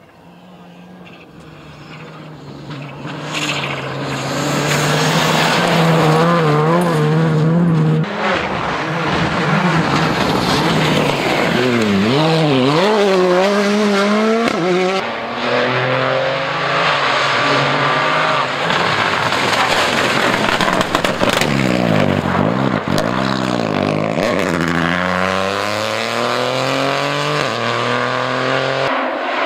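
Rally car engines at high revs on a gravel stage. The engine noise builds from a distance over the first few seconds, then runs loud with revs repeatedly rising and falling through gear changes and lifts. Near the end comes a run of rising revs.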